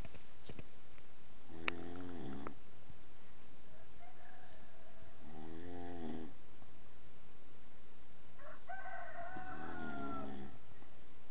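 A person snoring loudly: three long, buzzing snores about three and a half seconds apart. The third carries a higher drawn-out tone that falls at its end.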